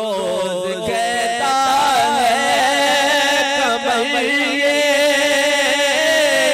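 A man singing a naat (Urdu devotional song) into a microphone, drawing out long held notes with vibrato and slow melodic turns over a steady lower drone.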